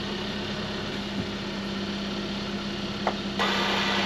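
Hyundai Tucson engine idling with a steady hum. Near the end there is a click, then a whir of about a second as the electric parking brake's rear caliper motors work.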